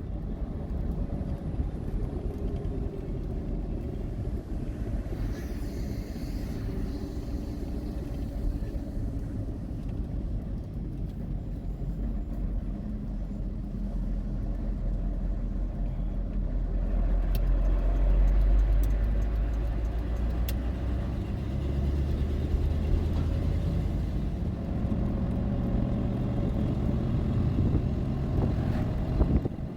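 Motor vehicle driving: a steady low engine and road rumble whose engine note shifts in pitch, swelling loudest past the middle.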